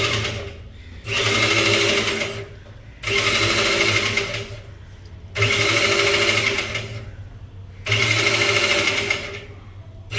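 Electric power tool running in repeated bursts of about a second and a half, five times with short pauses between, with a steady motor hum and a busy mechanical rattle.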